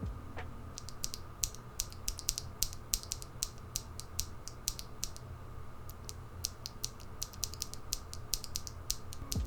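Light, irregular small clicks and ticks, several a second, from Prevail Nebula mechanical keyboard switches with nylon housings being handled.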